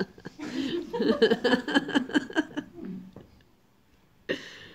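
Laughter, a run of quick, evenly repeating pulses lasting about two and a half seconds, then a short hush.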